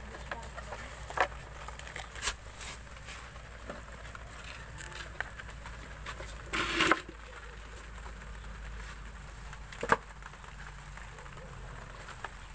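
A hand rummaging through a plastic basin of freshly caught shrimp and small crabs: scattered clicks and rustles, a louder scrape about halfway through, and a sharp click near the end, over a steady low rumble.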